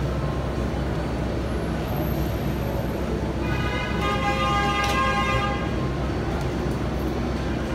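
New York City Subway 7 train running with a steady low rumble; about three seconds in, a horn sounds a steady, even-pitched blast for about two and a half seconds.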